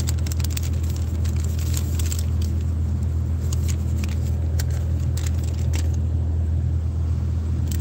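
Car engine idling, a steady low hum heard from inside the cabin, with scattered light clicks and rustles of handling.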